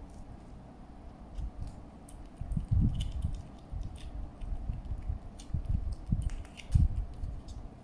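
British shorthair kitten licking and chewing a creamy treat squeezed from a tube: irregular small wet smacks and clicks, with some dull bumps in between.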